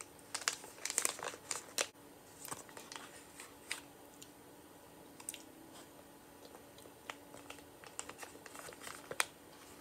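Small cosmetic sample packets crinkling as they are handled, in quick runs of crackles that are busiest in the first two seconds and scattered after, with one sharp crackle near the end.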